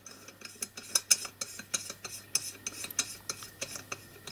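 A small metal blast nozzle being screwed by hand onto the threaded blast pipe of a miniature steam locomotive, made from bronze valve guides: a run of light metallic clicks and scrapes, several a second.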